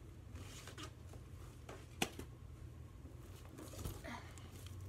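Rustling and handling of school supplies in a backpack: short scrapes and rustles, with one sharp click about two seconds in.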